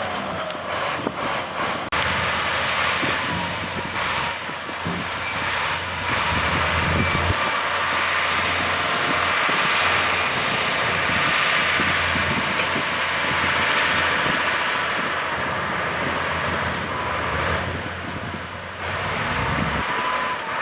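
Heavy earthmoving machinery working: diesel engine running steadily under load, with several sharp clanks in the first couple of seconds and a few more a little later.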